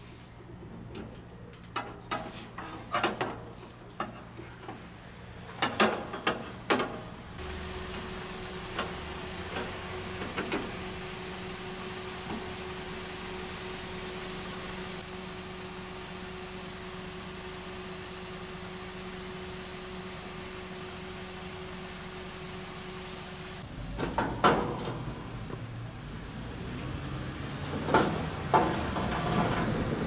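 Gloved hands pressing an air conditioner's run capacitor back into its metal bracket, with scattered clicks and knocks on the sheet-metal casing. A steady hum with one faint tone follows for about sixteen seconds. Near the end comes louder knocking and clatter of a sheet-metal cover being handled.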